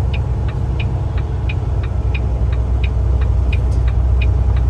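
A car's indicator flasher clicking in an even tick-tock, about three clicks a second, over the steady low hum of the engine running.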